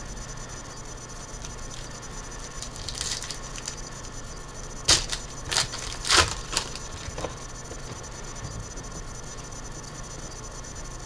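Foil trading-card pack wrapper crinkling in the hands, then torn open with a few sharp rips about five to six and a half seconds in.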